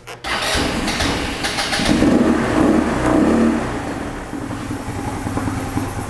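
Genuine Buddy scooter's four-stroke single-cylinder engine cranked over and firing up on a few puffs of carburetor cleaner sprayed into the intake. It runs loudest from about two to three and a half seconds in, then settles steadier and lower. It starts only on this external fuel, which shows that the missing piece in this no-start was the charge of fuel and air.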